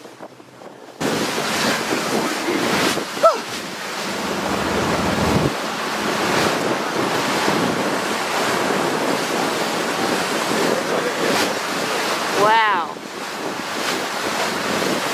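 Wind buffeting the microphone over the rush of sea water on a boat at sea, starting abruptly about a second in and then holding steady. A brief high-pitched cry rises and falls once, late on.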